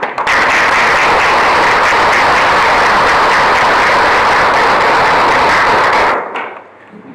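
Audience applauding, loud and steady, then dying away quickly about six seconds in.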